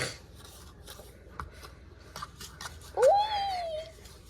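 Light scraping and tapping of a utensil stirring the slime mixture in a bowl. About three seconds in there is a short vocal sound that rises in pitch and holds for about a second.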